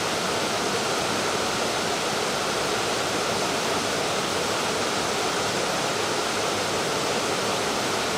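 Steady rush of river water running over rocks, an even, unbroken noise.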